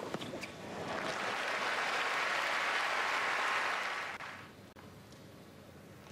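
Stadium crowd applauding and cheering at the end of a tennis point. A couple of sharp ball strikes come right at the start, then the applause swells within about a second, holds, and dies away about four seconds in.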